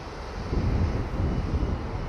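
Low, uneven outdoor rumble with no clear tone, growing louder about half a second in.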